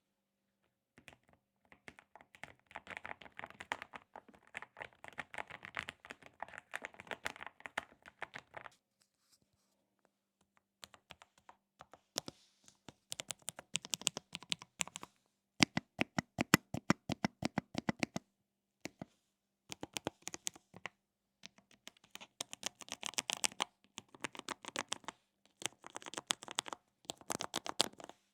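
Typing on an Akko Air 01 low-profile aluminium mechanical keyboard with linear Kailh switches. The keystrokes come in quick runs of clacks with short pauses between, and a run of louder, deeper strokes comes about two-thirds of the way through. The sound is deep and clean, without plasticky rattle.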